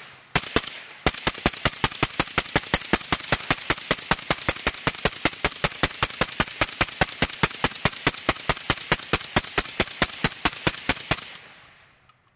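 Suppressed Arsenal SLR104UR 5.45x39mm short-barrelled rifle firing semi-automatic: one shot, then a steady string of rapid shots at about five a second for some ten seconds, stopping near the end.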